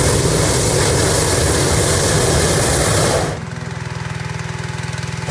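Hot-air balloon propane burner firing with a loud rushing hiss during hot inflation. It cuts off about three seconds in and fires again right at the end, over the steady running of the small petrol engine on the inflator fan.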